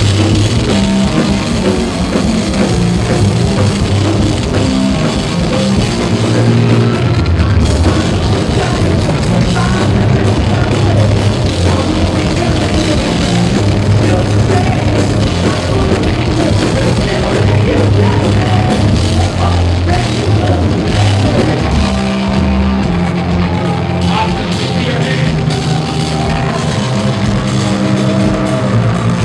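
Live heavy metal band playing loud: distorted electric guitars, bass and drum kit, with a singer's vocals over them. The recording is loud and rough in sound quality.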